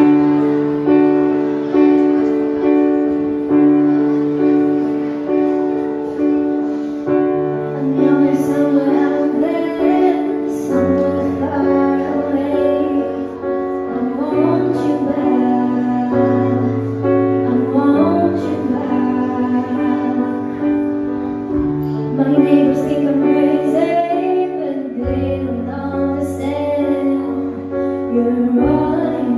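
A song with piano accompaniment: repeated piano chords for about eight seconds, then a female voice singing over them.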